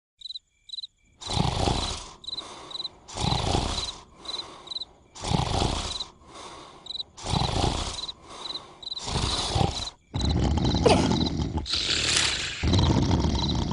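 Cartoon snoring: a loud snore about every two seconds, over steady cricket chirping. From about ten seconds in, the snoring turns into a louder, unbroken noise.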